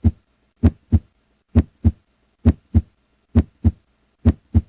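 Normal heart sounds: a steady lub-dub, each first sound (closing of the mitral and tricuspid valves) followed about a third of a second later by the second (closing of the aortic and pulmonary valves), at about 65 beats a minute.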